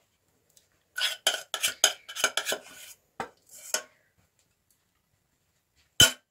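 Metal kitchenware clattering: a quick run of clinks and knocks for about two seconds, two more shortly after, then one sharp loud knock near the end. This is the handling of the pan of sugar for caramel on the stove.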